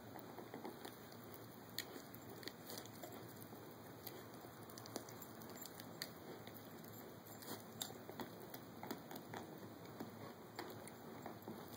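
Caucasian Ovcharka puppy gnawing on a dried bull pizzle chew: faint, irregular clicks and crunches of teeth on the chew, a few a second.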